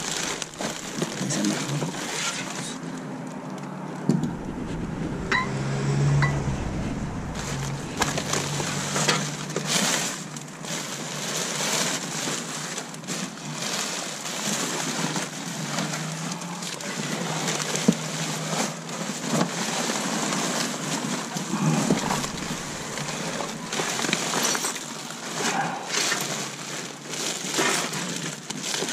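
Rummaging through a dumpster's contents: items being shifted and handled, with irregular knocks, rustles and clinks.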